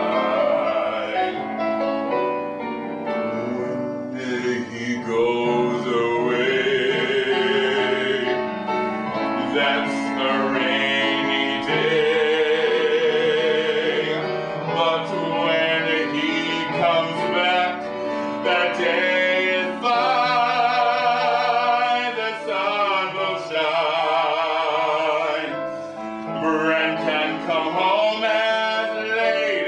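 Operatic-style male voice singing long held notes with a wide vibrato, accompanied by piano.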